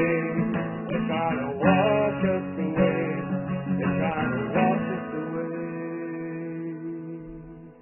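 Acoustic guitar strumming chords. About five seconds in, the strumming stops on a final chord that rings on and fades away.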